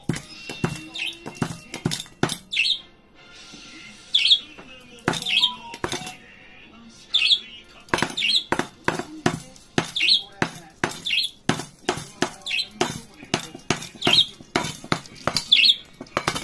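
Budgerigar knocking and shoving a stainless-steel seed bowl across a table, a run of sharp metallic clanks and rattles, with short high chirps between them.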